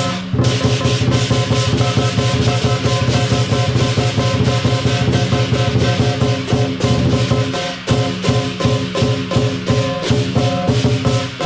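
Music with a fast, steady drumbeat and held pitched notes underneath.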